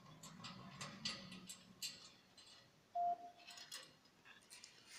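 Tin clockwork fire-station toy being handled: light clicks and ticks from its metal parts and chain, and one short metallic ring about three seconds in.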